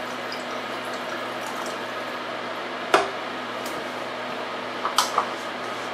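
Chicken stock poured from a carton into a stainless steel saucepan of hot pan liquid on an electric burner, over a steady hiss. Two sharp knocks, about three seconds in and again near five seconds.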